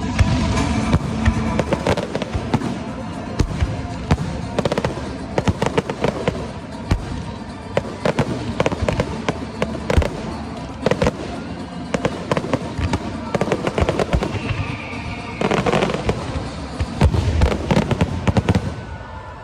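Fireworks display: a dense, continuous run of sharp bangs and crackles from exploding shells, with music playing underneath.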